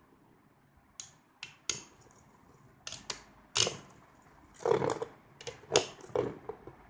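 Two metal Beyblade spinning tops clashing in a cardboard stadium: sharp clacks at irregular intervals, about ten hits, coming thicker and louder in the last couple of seconds.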